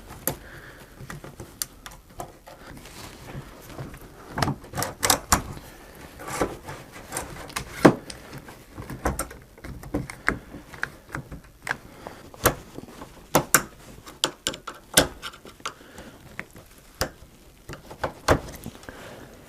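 Irregular clicks and small knocks of router parts being handled and fitted together while the lock ring is worked back into the plunge router.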